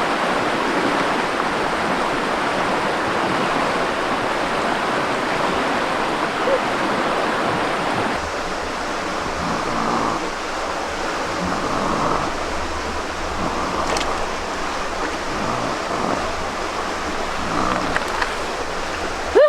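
Steady rush of running water, like a stream, with one sharp click about two-thirds of the way through.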